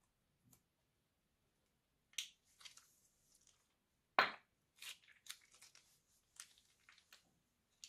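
Scissors give a faint snip at the tip of a plastic piping bag. Then comes a run of irregular crackles and pops, with one sharp pop just after four seconds, as slime is squeezed out of the bag.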